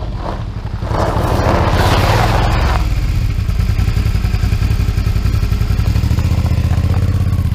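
2008 Suzuki V-Strom 650's 645 cc V-twin engine, through a Delkevic exhaust, running on a gravel road, with a rush of gravel noise about a second in. It then runs steadily at low revs with an even beat.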